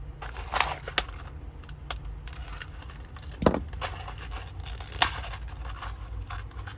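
Scattered clicks and light rattles of small metal hardware being handled while sorting through screws, with one sharper knock about three and a half seconds in.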